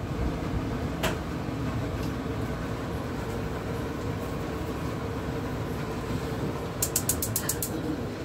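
Gas stove burner running steadily under a pot of heating oil and sugar: a low rumble with a faint steady hum in it. A single sharp click about a second in, and a quick run of about seven clicks near the end.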